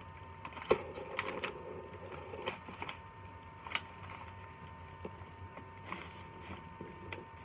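Scattered light clicks and taps of a paper chip bag being handled and clamped in a hot paper crimper, the sharpest click a little under a second in, over a faint steady hum.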